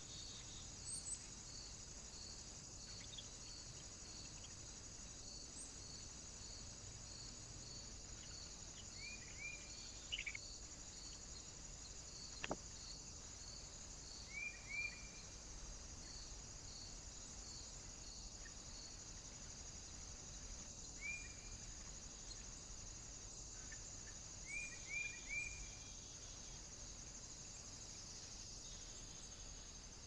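Faint insects chirping in an even pulse over a steady high hiss. Small birds give short calls in quick pairs and triplets four times.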